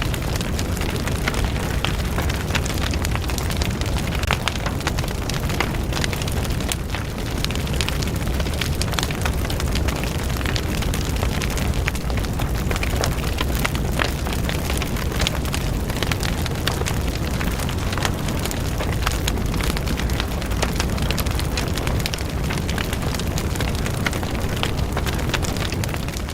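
Large fire burning: a steady low rumble of flames with dense crackling and popping throughout.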